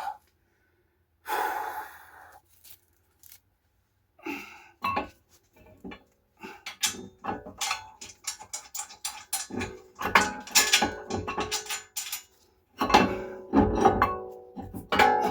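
Metal brake and hub parts knocking and clinking, many strikes in quick succession, some ringing on with a pitched, musical metallic tone.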